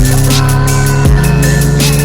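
Phonk-style electronic music with a heavy kick drum and sustained bass.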